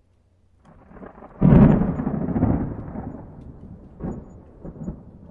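Thunder sound effect: a sudden deep boom about a second and a half in that rumbles away over a few seconds, with smaller rumbles near the end.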